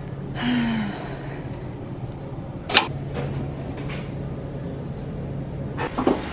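Weight-stack gym machine in use: a sharp metallic clank about three seconds in and a lighter clatter near the end, over a steady low hum, with a short scraping noise near the start.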